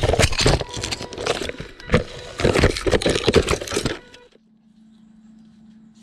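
Small robot rover tumbling and rolling down a steep slope of dry sticks and leaf litter: a rapid run of knocks, cracks and scrapes over the steady whine of its drive motors. It all stops suddenly about four seconds in, leaving only a faint low hum.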